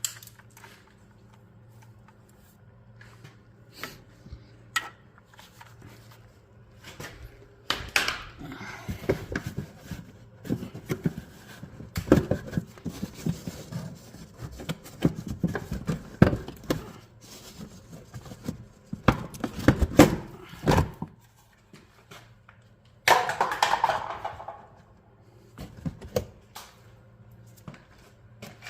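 Metal tools and car parts clinking and knocking irregularly during CV axle replacement work, over a steady low hum. A short whirring burst comes about two-thirds of the way through.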